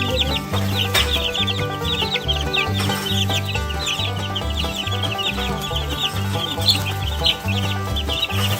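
A brood of two-week-old Barred Rock chicks peeping without pause, many rapid high chirps overlapping, over background music with a plodding bass line.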